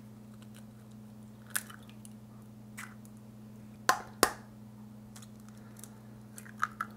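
Eggs being cracked open one after another into a glass measuring cup: sharp cracks and taps of shell a second or more apart, the loudest pair about four seconds in and a few quick ones near the end, over a faint steady hum.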